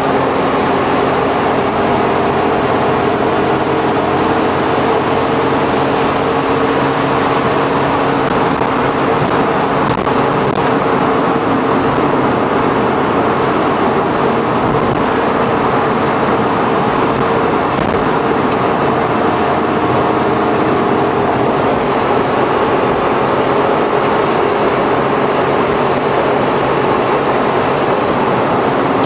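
Inside-cabin running sound of a Suzuki Every kei van with Auto Gear Shift and its 660 cc three-cylinder engine, cruising at steady highway speed. The engine drones with several steady tones over constant tyre and road noise.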